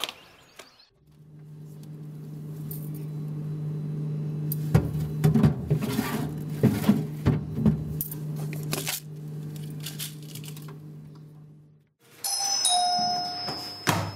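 A low steady drone with a few sharp hits over it cuts off about twelve seconds in. It is followed near the end by an electronic doorbell chime playing a short run of clear tones.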